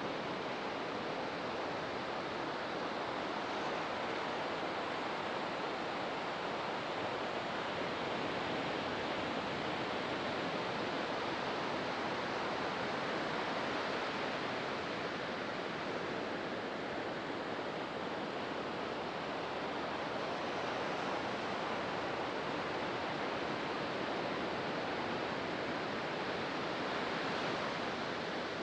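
Ocean surf: waves breaking and washing up the beach in a steady, continuous rush that swells gently now and then.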